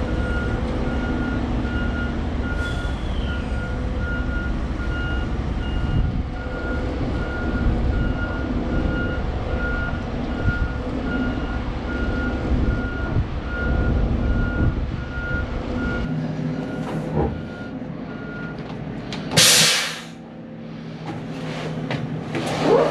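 Heavy truck engine running with a backup alarm beeping about twice a second. The engine rumble and the beeping drop away about sixteen seconds in, and near the end a loud short hiss of released air comes from the truck's air system.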